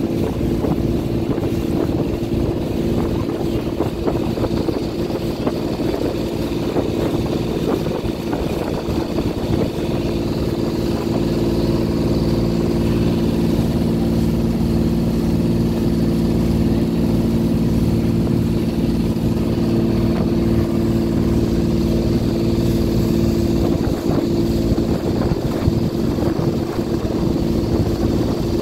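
Small passenger boat's engine running steadily at cruising speed, a constant drone, with the rush of water and spray along the hull.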